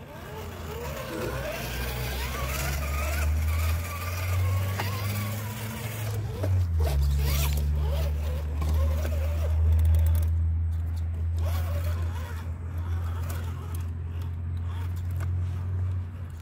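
Electric motor and gear whine of an RC4WD TF2 scale crawler truck being driven, rising and falling in pitch with the throttle, over a steady low rumble.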